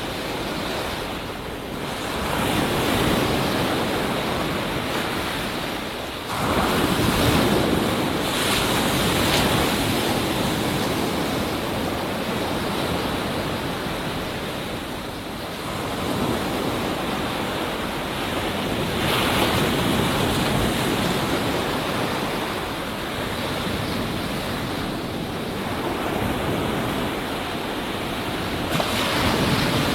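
Ocean surf breaking on a beach: a continuous wash of white water that swells and eases every few seconds as each wave comes in. The sharpest, loudest surge comes about six seconds in.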